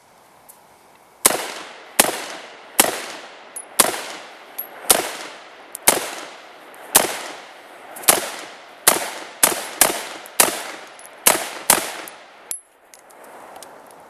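A firearm fitted with a prototype flash suppressor/compensator fired in a rapid string of about fourteen shots, roughly one a second and quickening near the middle. Each report is loud and sharp, with a trailing echo.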